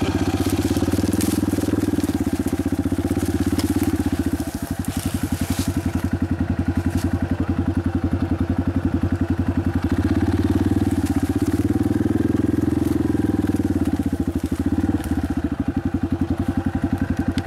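Dirt bike engine running at low revs, a steady pulsing beat that rises and eases off a little a couple of times.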